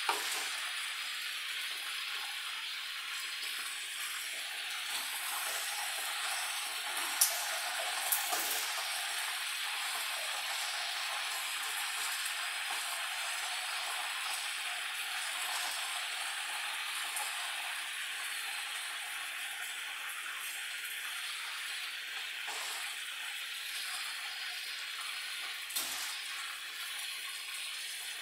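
Chicken frying in a pan with a steady sizzle, broken by a few sharp clicks about 7 and 8 seconds in and again near the end.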